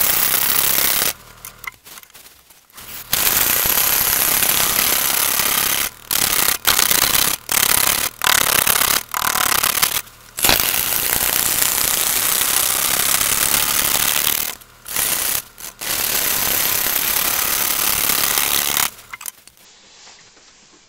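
Turning tool cutting into a large, irregular green-wood log spinning on a wood lathe during rough turning: a loud, rough cutting noise broken by short pauses as the tool comes off the wood. The cutting stops near the end and the sound dies away.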